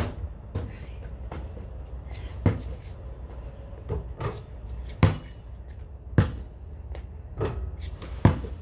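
Basketball bouncing on concrete and striking the hoop during shooting practice: about ten separate thuds, unevenly spaced, over a low steady background hum.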